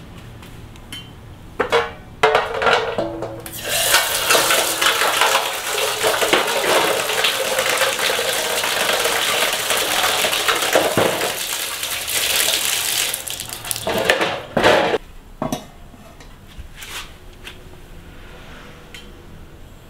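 Water pouring and splashing into a large aluminium basin for about ten seconds as a plate and a wooden chopping board are rinsed, with clattering knocks of the board and plate against the metal before and after.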